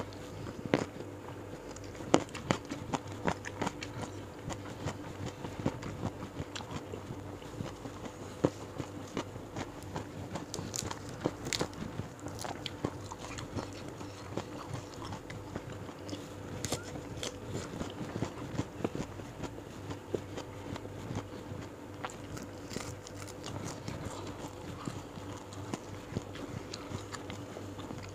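Close-miked chewing and crunching: a person eating raw vegetables and fried salted fish with sambal by hand, with many irregular sharp crunches. A faint steady hum lies underneath.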